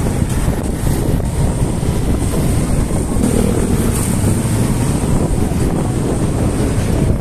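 Wind rushing over a phone's microphone while riding in the open back of a moving vehicle, mixed with the vehicle's running and road noise: a loud, steady, mostly low rumble.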